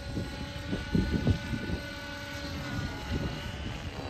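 Align T-Rex 550 electric radio-controlled helicopter in flight, its motor and rotor head giving a high whine that drifts slightly in pitch as it manoeuvres. Under it is a gusty low rumble of wind on the microphone.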